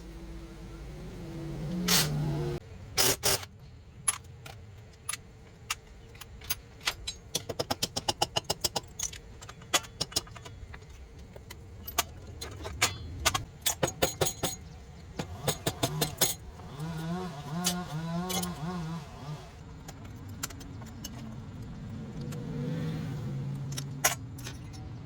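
Metal hand tools and motorcycle parts clinking and clicking during repair work, with a fast run of even clicks about a third of the way in.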